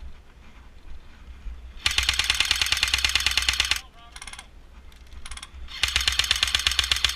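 Automatic airsoft gun firing two long bursts of rapid, evenly spaced shots, each about two seconds long: the first starts about two seconds in, the second near the end. A couple of short, fainter bursts come between them.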